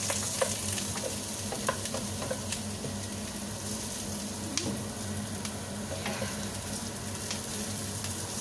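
Beef balls and chopped onion sizzling in a nonstick wok, stirred with a wooden spatula that gives a few light clicks against the pan.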